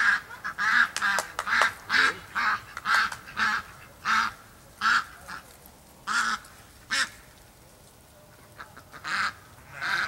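Domestic ducks quacking loudly in a quick run of short calls that thins out after about five seconds, falls quiet for a moment, and picks up again near the end.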